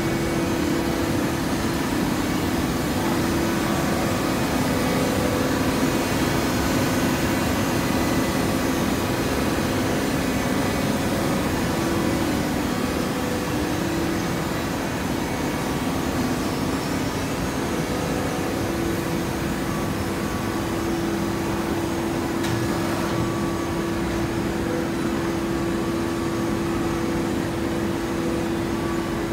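TCM fully automatic horizontal hydraulic baler and its feed conveyor running while baling loose fibre: a steady machine drone with a constant mid-pitched hum, which grows stronger about two-thirds of the way in.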